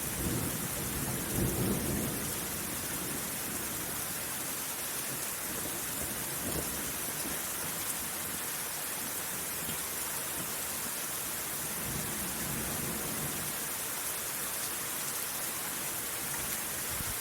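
Steady rain falling in a thunderstorm, an even hiss, with low rolls of thunder: the strongest in the first two seconds, fainter rumbles about six and twelve seconds in.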